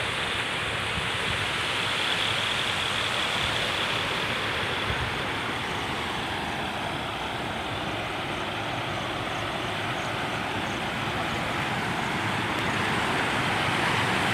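Swollen village river in flood, a steady rush of fast-flowing water.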